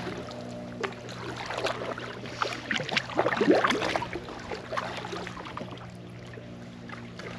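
Kayak paddle strokes in calm water: the blade dipping and pulling through, with splashes and drips, busiest a little past the middle. A steady low hum runs underneath.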